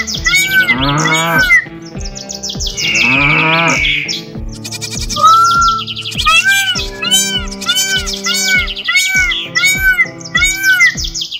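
Cartoon sound effects over a music track with a steady beat: a cow mooing twice in the first half, then a run of short bird-like calls, about two a second, in the second half.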